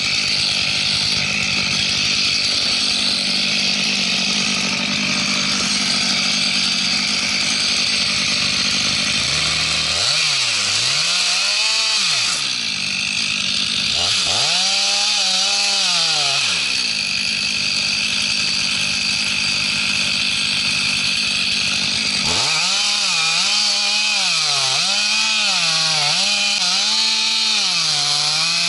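Chainsaw running at full speed and cutting wood, its pitch repeatedly dipping and recovering as the chain bites under load, several times in quick succession near the end.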